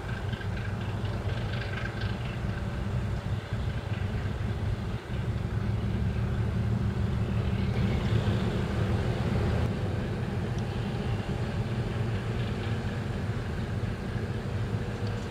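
Diesel engines of fishing boats running as they head out of the harbour: a steady low rumble that swells to its loudest about halfway through.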